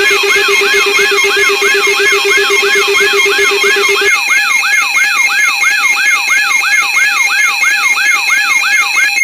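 Electronic alarm sounding: a rising-and-falling whoop repeating about three times a second, layered over steady pulsing tones. About four seconds in, the low steady tone drops out and a higher whoop joins in.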